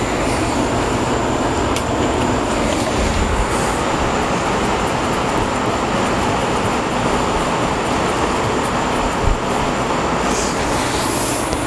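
Steady rushing noise of an electric floor fan running, with a few light clicks of a hand tool and a dull thump about nine seconds in.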